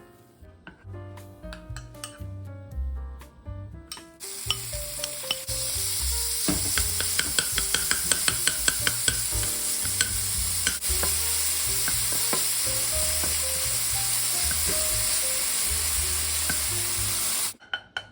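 Steady hiss of food cooking in a hot pan, starting about four seconds in and cutting off suddenly near the end, with a run of quick clicks from a utensil stirring it early on. Soft background music plays alone before the hiss and faintly under it.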